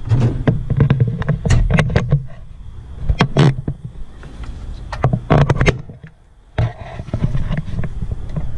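Irregular clicks, knocks and rubbing of hands and parts being handled close to the microphone, with a brief lull about six seconds in.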